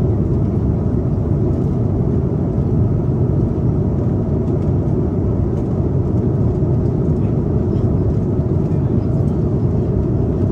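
Steady, deep cabin noise of an Airbus A330-300 airliner in cruise: engine and airflow noise heard from inside the passenger cabin.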